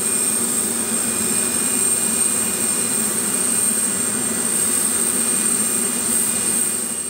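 Aircraft turbine running steadily: a constant high whine over a lower drone.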